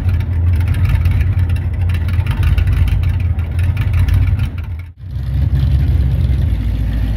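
A 1942 Ford pickup's flathead engine runs steadily, with a low, fast, even exhaust pulse. The sound drops out for an instant just under five seconds in, then the engine is heard running the same way again.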